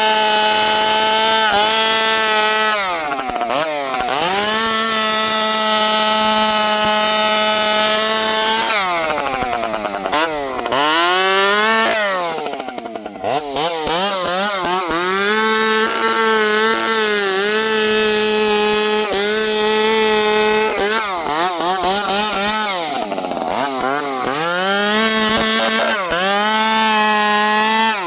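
Dolmar 7300 two-stroke chainsaw, stock but for a small pipe on the muffler, running at full throttle and cutting wood. Its engine speed sags under load several times, most deeply for a couple of seconds about ten seconds in, then climbs back to a steady high pitch.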